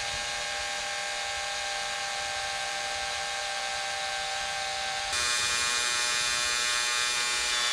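Makita cordless drill-driver running steadily with a hex bit, driving in the bolts of a furling unit's housing. Its whine shifts in pitch and gets a little louder about five seconds in, then stops abruptly.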